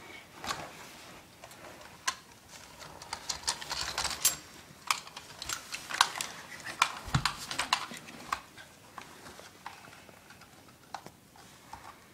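Irregular plastic clicks and rattles of a GameFace M4 carbine airsoft gun being taken apart by hand, with a dull thump about seven seconds in.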